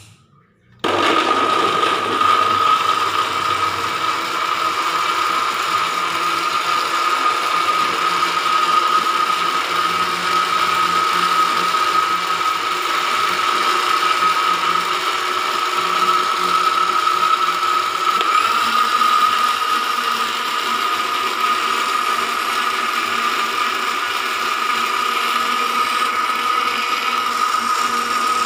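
Electric kitchen blender switched on about a second in, its motor then running steadily at speed with a high whine over a rattling mechanical whir.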